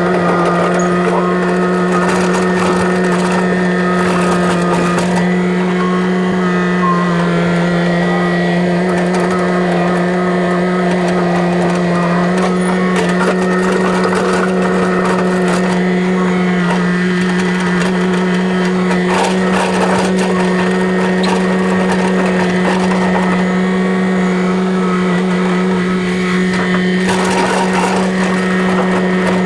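Engine of an earth-moving machine running steadily at constant speed, with scattered clanks and knocks from the work.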